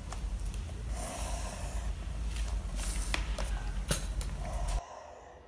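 Pencil scratching across paper in a few strokes along a plastic ruler, with a couple of light clicks, over a steady low hum that cuts off suddenly near the end.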